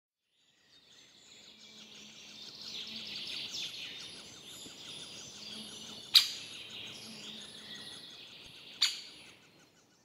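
Chorus of wild birds chirping and calling, fading in over the first couple of seconds and out near the end, with two sharp taps about six and nine seconds in.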